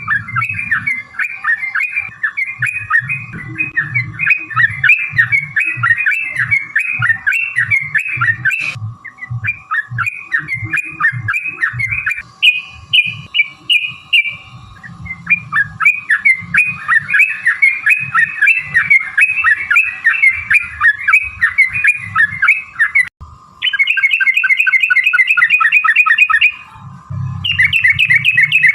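Yellow-vented bulbul (trucukan) singing a long, rapid chattering song of quickly repeated notes. The song breaks off abruptly a few times, and after about 23 seconds it turns into faster, denser rolling trills.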